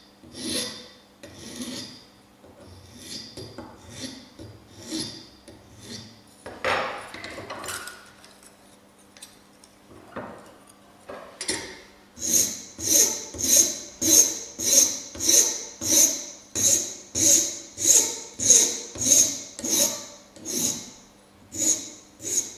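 Hand file rasping across the edges of thin aluminium sheet pieces clamped in a bench vise. The strokes are lighter and uneven in the first half. From about halfway, they turn firm and regular, at about three strokes every two seconds.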